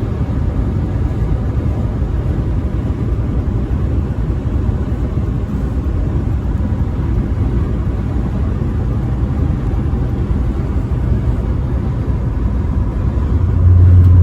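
Semi truck driving on the highway: steady low engine and road rumble. Near the end a much louder low hum sets in for about a second.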